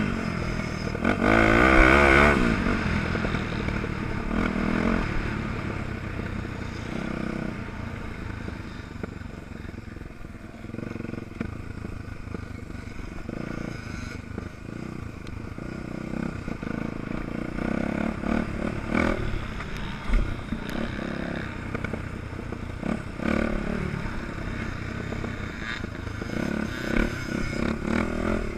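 Off-road motorcycle engine under way on a gravel track, revving hard about two seconds in, then running quieter on a lighter throttle through the middle, and revving up again near the end. Stones and the bike's chassis clatter and scrape underneath.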